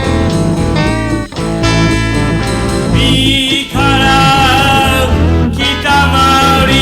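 Music: a song with singing over guitar and a steady bass line.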